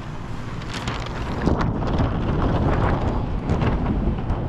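A large sheet of plastic window tint film crinkling and rustling as it is handled and carried close to the microphone, with rubbing handling noise; it grows louder about one and a half seconds in.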